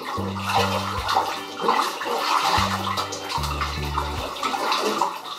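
Water sloshing and splashing in a bathtub crowded with water-filled balloons as a child moves through it, over background music with a line of held low bass notes.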